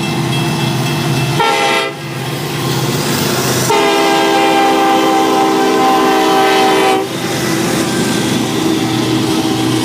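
Union Pacific SD70ACe diesel locomotive's multi-chime air horn sounding for a grade crossing: a short blast about a second and a half in, then a long blast from about four to seven seconds. The short-then-long pattern ends the standard crossing warning. Under the horn, the diesel engines drone and the train runs past.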